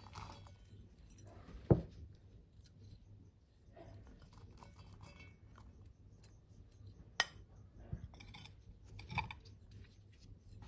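Kitchen handling sounds: a dull thump about two seconds in, a sharp click about seven seconds in, and scattered light clinks and scrapes of utensils and containers.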